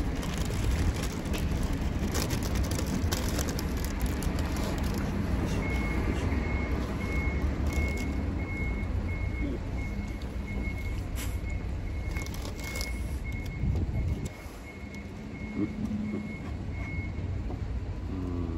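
A vehicle's engine running with its reversing alarm beeping steadily, a single high tone at about two beeps a second, starting a few seconds in and stopping near the end; the engine's low rumble eases off about two-thirds of the way through.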